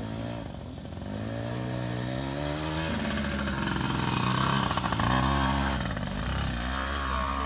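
Small two-stroke youth dirt bike under throttle: the engine pitch climbs, drops abruptly about three seconds in, then climbs again and eases off. It is loudest as the bike passes close by midway.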